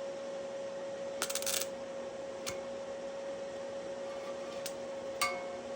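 Stick welder's arc crackling briefly about a second in as the rod is struck, then single clicks a few times, over a steady high hum. The arc does not hold, typical of the welder that is called iffy.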